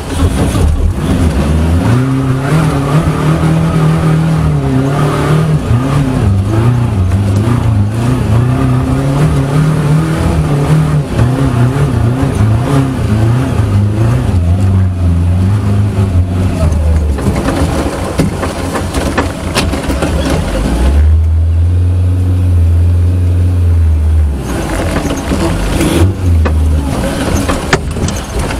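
Off-road 4x4's engine revving up and down again and again as it is driven over rough ground; about three-quarters of the way in it settles to a steadier low note for a few seconds, then revs again.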